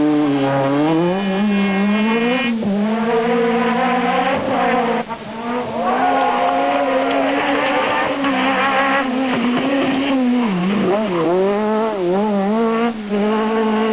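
Renault Clio Maxi Kit Car's 2.0-litre four-cylinder rally engine driven hard, the revs climbing and dropping again and again with gear changes and lifts off the throttle.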